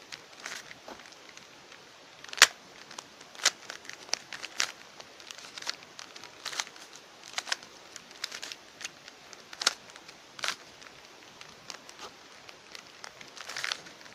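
Plastic 3x3 puzzle cube being turned by hand: irregular clicks and clacks as the layers snap round, one to three a second, with one louder clack about two seconds in.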